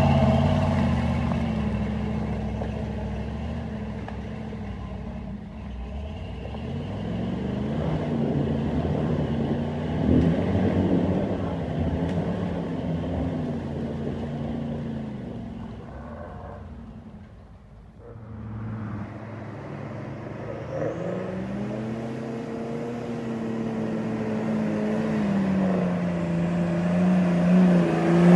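Engine of an off-road 4x4 revving up and down. It fades almost away about two-thirds of the way through, then grows louder again, its pitch rising and then holding high near the end.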